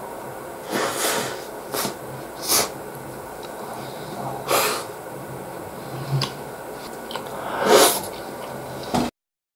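A man eating bread with mouth and nose noises: several short, breathy sniffs or exhales and chewing sounds at irregular intervals. About nine seconds in, the sound cuts off abruptly to silence.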